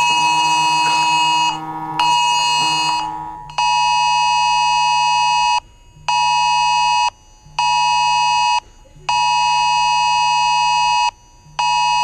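Cell phones sounding the Wireless Emergency Alert attention tone for a Presidential Alert test, a loud, harsh two-tone blare near 1 kHz. For the first few seconds the sound is denser, as if several phones overlap. About three and a half seconds in it settles into a repeating cadence of one long tone and two short ones, with half-second gaps.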